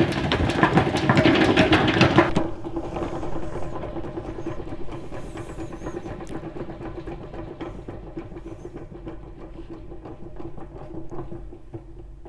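Hand-cranked four-frame tangential honey extractor spinning fast, with honey spattering against the stainless steel drum as a dense patter. About two seconds in, the cranking stops and the cage coasts on, its steady whir slowly fading.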